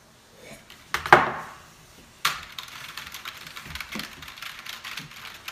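Fast typing on a computer keyboard: a dense flurry of key clicks that starts abruptly about two seconds in, after a single knock about a second in.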